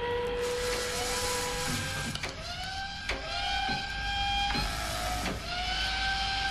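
Industrial hardcore techno track: a row of pitched, motor-like whines that slide up and then hold, each lasting about a second or so, split by sharp clicks, over a steady low rumble.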